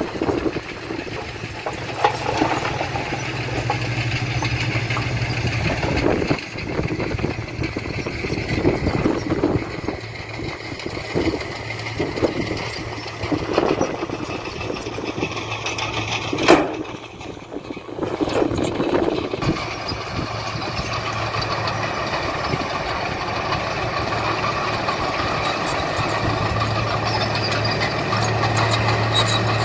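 Diesel engine of heavy earthmoving machinery running steadily, with irregular clunks and knocks. One sharp bang about halfway through is the loudest sound.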